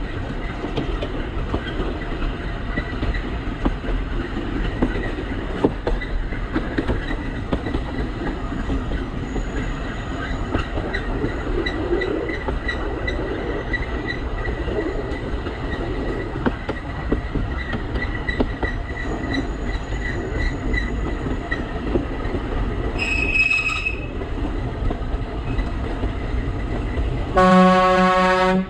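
Narrow-gauge Alishan Forest Railway train running, heard from the cab: a steady rumble with frequent clicks of the wheels on the track. A short high-pitched tone comes about 23 seconds in, and near the end the train's horn sounds once for over a second.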